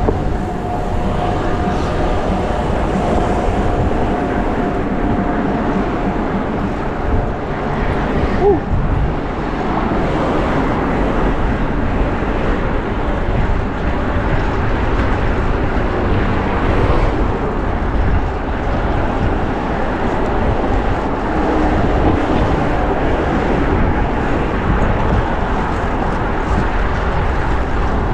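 Steady road and wind noise while riding a fixed-gear bicycle through city traffic, with a faint steady tone in the first few seconds and a short pitched squeal about eight seconds in.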